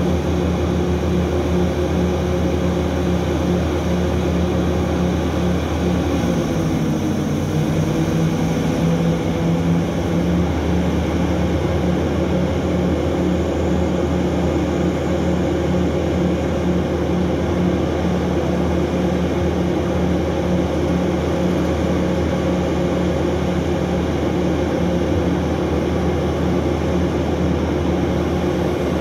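Large diesel engines of heavy mining machinery running, a loud steady drone. About six seconds in, the engine note dips and then recovers over a few seconds, as with a change in load.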